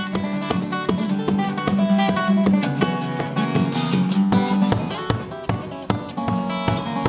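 Solo acoustic guitar played unamplified in fast fingerpicking, with a repeated low bass note under quick melody notes.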